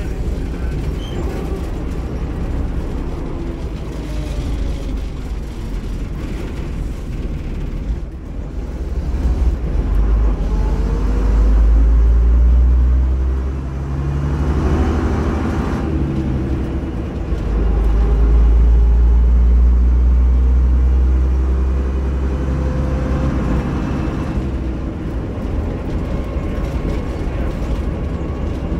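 Bristol RE bus's rear-mounted six-cylinder diesel engine, heard from inside the saloon while the bus is driven hard. A deep rumble swells twice, about ten and eighteen seconds in, and the engine note rises and falls in pitch in between.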